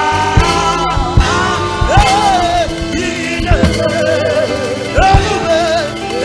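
Gospel praise music: a voice sings held, wavering notes over drum beats and instrumental backing.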